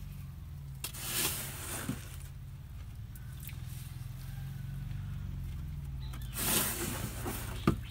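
Hand sloshing in water inside an old tin tank as washed sand is dropped in: soft splashes about a second in and again near the end, over a low steady hum.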